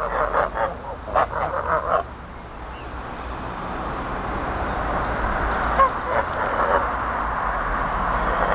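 Geese honking, a quick run of short calls in the first two seconds and a few fainter ones around the middle, over a steady rushing noise that slowly grows louder.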